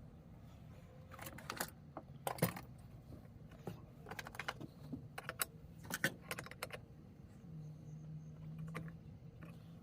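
Small metal parts of a Coleman lantern clicking and clinking as the valve is turned and fitted into the fount, in scattered clusters of light clicks. A low steady hum runs underneath and gets louder near the end.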